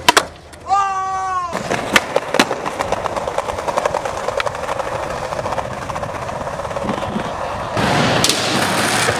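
Skateboard wheels rolling over concrete, with a few sharp clacks of the board and trucks striking the ground. The rolling gets louder near the end.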